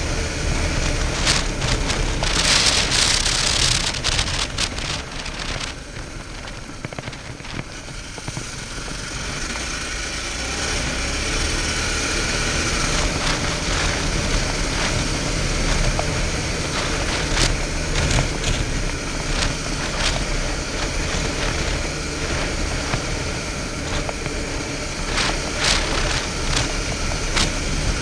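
Suzuki V-Strom 650's 645 cc V-twin running as the bike is ridden on a gravel trail, under a steady rush of noise with frequent sharp clicks of gravel under the tyres. The sound drops for a few seconds early on, then builds back up.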